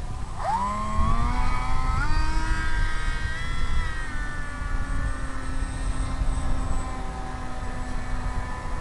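Electric motor and propeller of an RC model plane spinning up, rising in pitch in a couple of steps and then holding a steady note.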